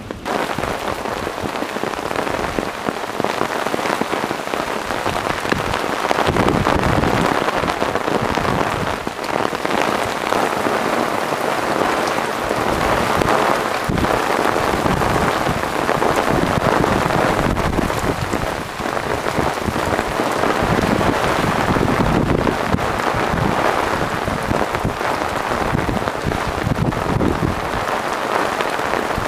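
Heavy thunderstorm rain pouring down and pattering on concrete pavement: a dense, steady hiss of drops that grows heavier about six seconds in.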